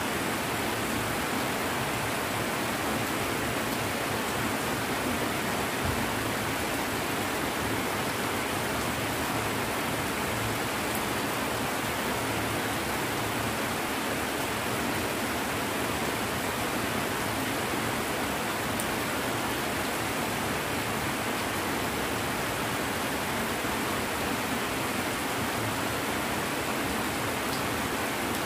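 Heavy rain falling in a steady downpour, an even unbroken rush of water.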